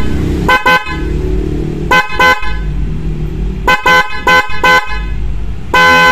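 A pair of Flosser snail (fanfare) horns, high and low tone, sounding together off a 12 V battery, hung free so the sound comes out clear. They are tooted in a string of short blasts, mostly in pairs, with one longer blast near the end. A low background rumble fills the gaps between blasts.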